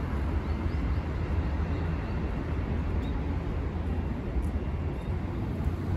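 Steady outdoor city ambience: a continuous hum of road traffic under a low rumble, with a few faint high chirps in the first couple of seconds.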